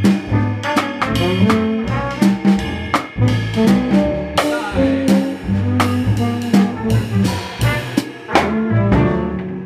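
Live jazz quintet in hard-bop style, with tenor saxophone and trumpet over piano, double bass and drum kit, playing with sharp drum and ensemble accents. The music dies away near the end.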